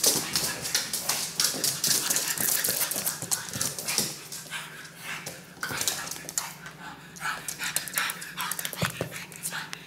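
Pug puppy scampering and playing with a rope ball toy on a laminate floor: a rapid clatter of clicks and scrapes, dense for the first half and thinning out later, with dog sounds among them.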